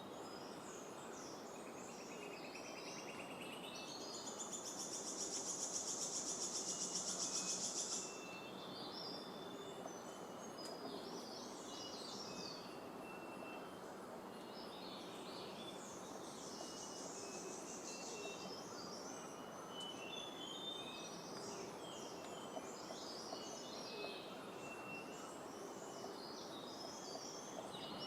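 Tropical forest ambience: several birds giving short high chirps and calls over a steady background hiss, with a louder, rapid pulsing buzz from about four to eight seconds in.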